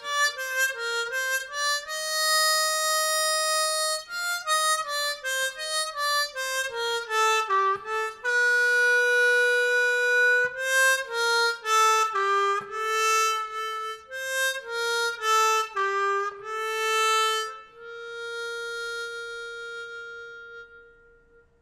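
Seydel 1847 Noble diatonic harmonica in B-flat played solo and unaccompanied, carrying a melody with several long held notes. It ends on a long note that fades away near the end.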